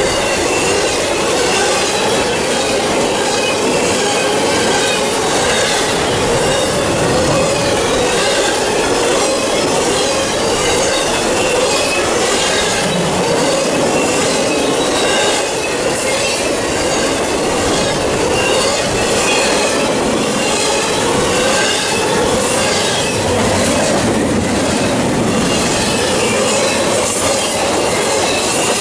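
Container well cars of a CSX intermodal freight train rolling past close by: a loud, steady rush of steel wheels on rail, with wavering tones and faint repeated clicks as the wheels pass over the rail joints.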